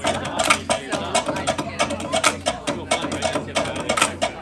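Dance music with a rapid, even drumbeat of sharp hits, about five a second, played through PA loudspeakers.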